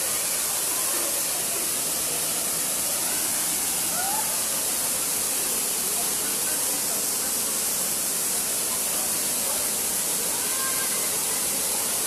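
Gizlikent waterfall, a tall narrow cascade, falling into its rocky pool: a steady rushing hiss of water that does not change.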